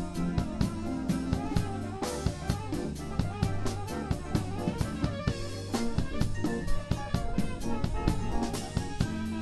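Live band playing a bossa nova, with a drum kit up close: a steady stream of cymbal and drum strokes over a bass line and other instruments.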